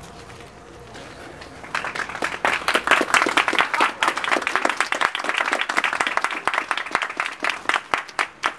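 A small group of people applauding. It begins about two seconds in and thins to more scattered claps near the end.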